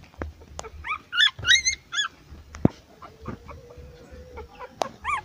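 Newborn puppies squealing in short, high-pitched cries, a cluster of about five between one and two seconds in, with a few sharp knocks between.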